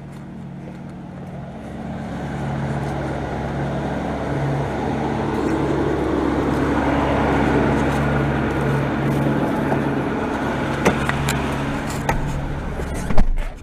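Ford F-450 truck's engine idling with a steady low hum, growing louder over the first few seconds, with a few light clicks and then one sharp bang near the end, a cab door shutting.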